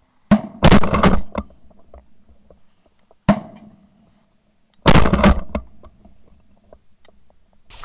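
Shotgun blasts at Canada geese coming in over water: a shot just after the start and a quick volley right after it, another single shot about three seconds in, and a second volley around five seconds, each ringing out briefly.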